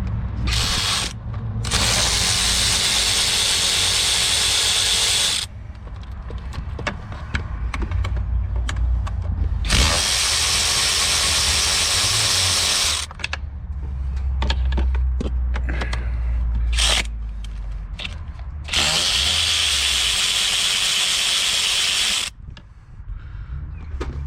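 A handheld power tool with a socket spinning out 8 mm intake manifold bolts. It runs in bursts: a short blip, then three runs of about three seconds each, with light metal clicks and clinks between them.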